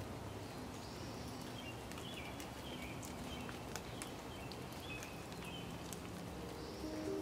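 Steady rain falling outdoors with scattered drips, and a bird chirping faintly now and then.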